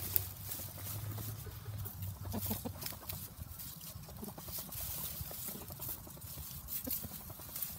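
Rooster scratching and pecking through dry grass and straw litter: a run of small rustles and crackles.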